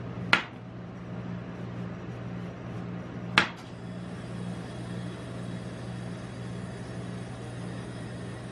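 A large knife peeling a melon, its blade striking the steel pan of a rolled ice cream machine twice with a sharp metallic knock: once right at the start and again about three seconds later. A steady low hum runs underneath.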